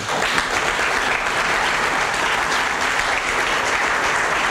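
Audience applauding: many hands clapping in a dense, steady patter that starts all at once and holds at an even level.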